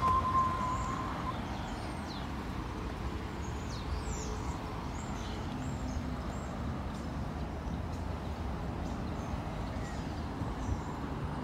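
Street ambience: a steady low rumble of traffic with small birds chirping now and then. A short steady high tone sounds during the first second.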